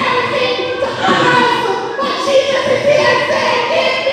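A woman singing, with long held notes.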